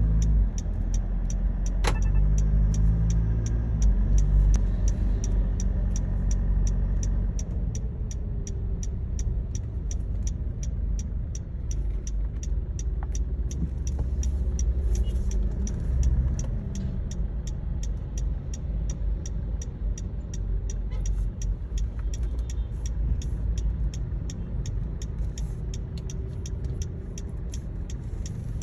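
Mitsubishi Pajero Sport's seatbelt warning, a rapid chime of short high beeps repeating about twice a second without pause. It sounds over the low rumble of the engine and road noise inside the cabin while the SUV is driven slowly with a belt unfastened.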